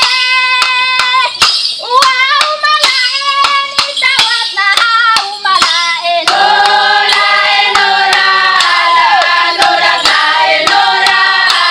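A group of women singing a welcome-dance song together, over steady sharp percussive beats. From about halfway the voices hold long notes.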